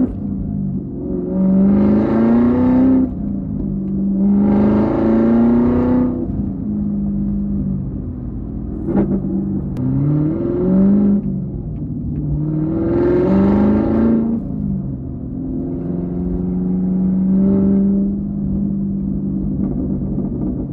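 Camaro ZL1's supercharged V8 through a Corsa NPP exhaust, accelerating hard about five times. Each time the pitch climbs, drops back and climbs again, with a steady drone between pulls.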